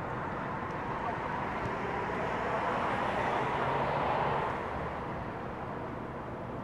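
Steady outdoor city noise with a passing vehicle that swells to its loudest about three to four seconds in, then fades.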